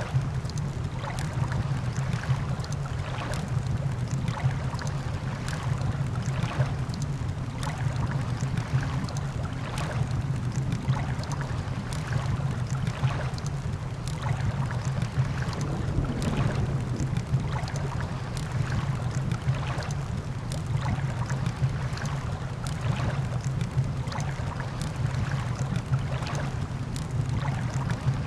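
Campfire crackling, with frequent irregular sharp pops, over a steady low rumble from the beach and storm ambience.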